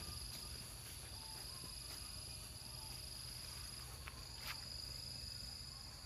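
Insects trilling steadily: a continuous high-pitched buzz, faint, with a few soft clicks.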